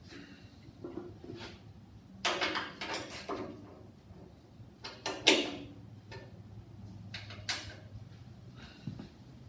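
Socket wrench tightening bolts on top of an Ingersoll garden tractor engine: scattered metal clicks and clanks, the loudest about five seconds in.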